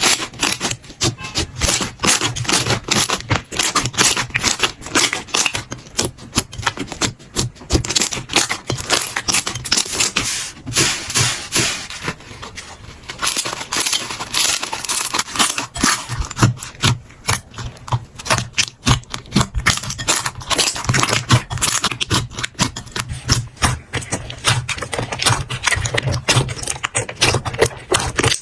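Slime being squeezed and poked by hand, giving a dense, continuous stream of sticky crackles and small pops, a little quieter through the middle.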